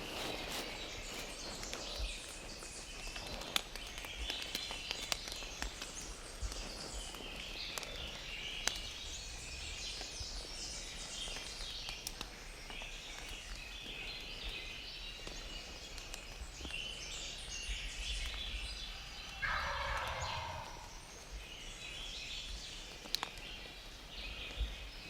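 A wild turkey tom gobbles once, about three-quarters of the way through. Songbirds chirp throughout.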